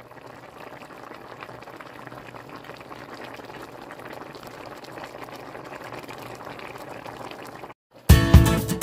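A pot of beef bone marrow soup bubbling steadily at a boil, a fine crackling fizz of bursting bubbles. It cuts off about eight seconds in, and strummed acoustic guitar music starts.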